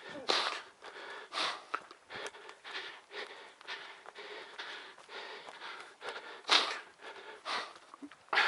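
A trail runner's hard breathing while running: loud, noisy breaths about once a second.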